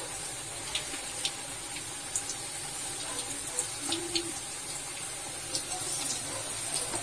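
Pakoda batter deep-frying in hot oil in a kadai: a steady sizzle with scattered small crackles and pops.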